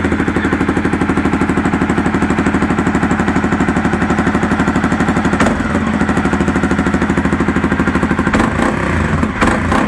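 Honda CBR300R single-cylinder engine, transplanted into a CRF250 Rally frame, running steadily with an even, rapid pulse just after being started. Its note changes briefly a little past halfway and again near the end.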